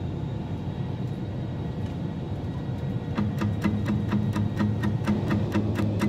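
Steady low airplane cabin drone. About three seconds in, a music intro enters over it with an even ticking beat, about four ticks a second, and a pulsing low tone.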